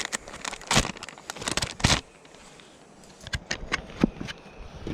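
Plastic lure packaging being handled, crinkling and clicking in irregular bursts, busiest in the first two seconds and again near the end.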